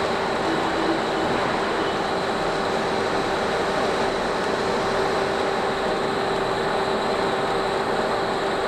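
Marion 160 cubic-foot paddle mixer running, its 40 hp electric drive turning the paddle shaft: a steady mechanical running noise with a few constant held tones, unchanging throughout.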